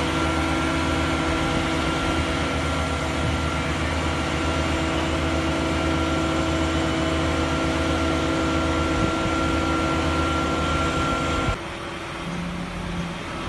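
Truck-mounted crane's diesel engine and hydraulics running steadily under load while lowering a steel bunker, a low hum with a steady high whine over it. About eleven and a half seconds in the sound drops suddenly to a quieter, lower hum.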